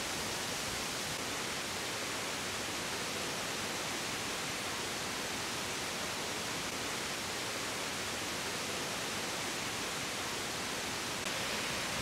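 Waterfall: a steady rush of falling water cascading over rocks, a little louder near the end.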